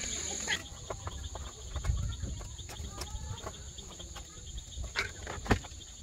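Insects trilling steadily outdoors. Near the end come two sharp knocks, a glass bottle set down into a metal bucket, the second knock the loudest.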